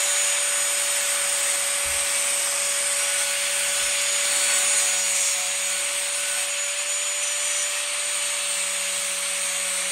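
Angle grinder with a thin cutting disc running at steady speed and slicing slots into thin sheet metal: a constant whine over the hiss of the disc biting the metal.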